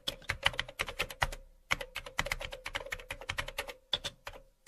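Computer keyboard typing sound effect: quick runs of key clicks with brief pauses between them.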